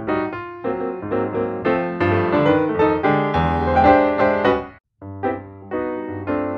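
Background piano music, one note after another, with a short break to silence a little before five seconds in.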